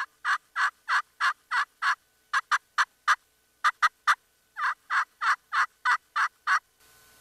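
Slate friction turkey call scratched with a wooden peg striker, making hen-turkey calls. A run of evenly spaced notes, about three a second, then a few quicker, shorter notes, then another even run of about seven notes.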